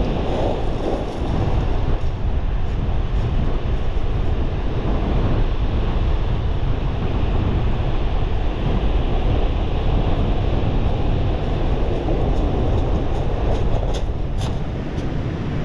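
Strong gale-force wind buffeting the microphone with a steady low rumble, over rough surf breaking on a shingle beach. A few light clicks come near the end.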